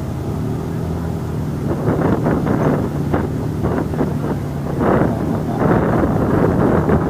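ATV engine running steadily at idle close by, with rougher, louder bursts between about two and six seconds in, and wind buffeting the microphone.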